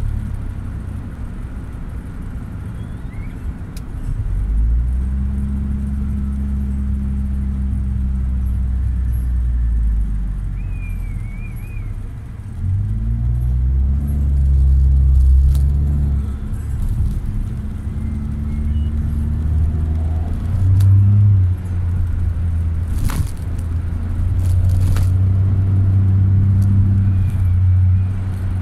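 Car engine and road noise heard from inside the cabin while driving, the engine note rising as the car speeds up about four seconds in and again about twelve seconds in. Two sharp clicks come past the halfway mark.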